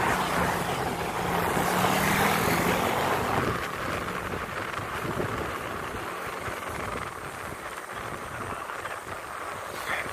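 Wind rushing over the microphone with road noise from riding alongside road bicycles, louder for the first few seconds, with a low steady hum that fades out about three seconds in.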